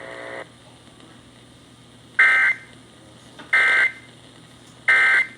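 Emergency Alert System end-of-message signal: three short bursts of warbling digital data tones about 1.4 seconds apart, over a faint steady hum.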